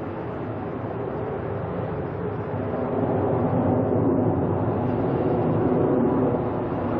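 Korean Air Boeing 747's four jet engines at takeoff power as the airliner climbs out overhead: a steady, rushing rumble that swells louder about three seconds in.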